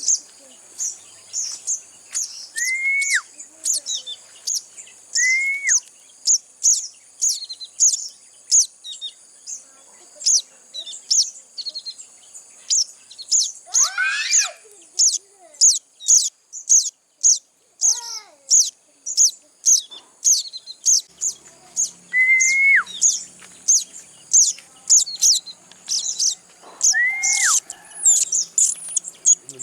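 Young sogon birds chirping, short high chirps repeating about twice a second, the begging calls of chicks being hand-fed. A few lower whistled notes rise then drop, and two longer falling calls come near the middle.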